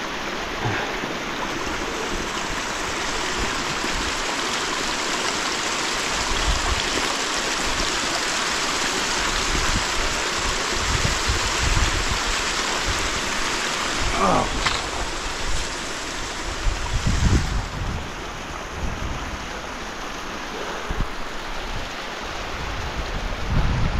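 A steady rushing noise with uneven low rumbles underneath.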